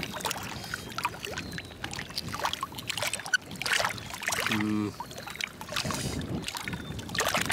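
Metal spoon clicking and scraping against oyster shells, over water lapping at the shore. A short hum of a voice comes about four and a half seconds in.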